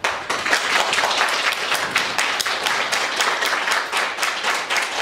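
Audience applauding: many hands clapping, starting all at once and holding steady.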